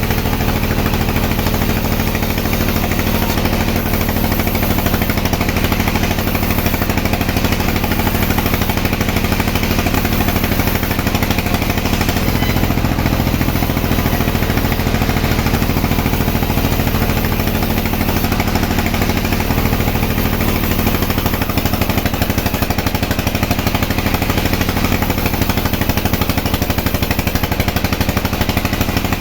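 Sawmill machinery running steadily, a low mechanical drone with a fast, even pulsing beat while logs are sawn. The low note shifts slightly about two-thirds through.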